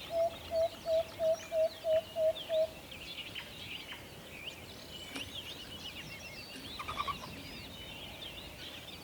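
An owl gives a quick series of eight short, low hoots, about three a second, over the first two and a half seconds, against a steady chorus of high-pitched chirping from other birds.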